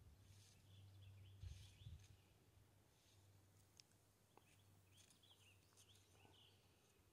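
Near silence: a faint low hum, with scattered faint bird chirps and a couple of soft handling thumps early on.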